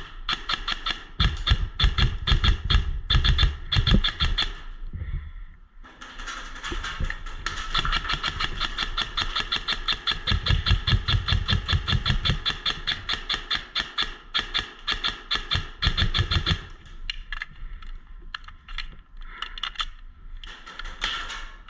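Airsoft electric gun firing full auto in long bursts: a fast, even, buzzing rattle. It breaks off briefly around five seconds in, runs on for about ten seconds, then comes in shorter, sparser bursts near the end.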